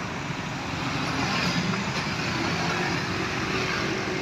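Roadside traffic noise: a passing vehicle's engine and tyre noise swells about a second in and holds steady.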